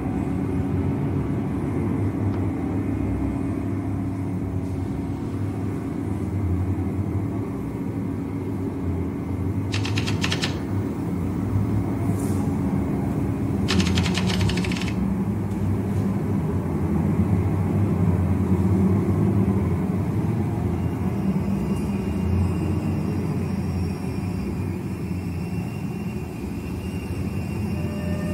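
A steady low rumbling drone from the film's soundtrack. About ten seconds in, and again briefly around fourteen seconds, come short bursts of rapid rattling clicks.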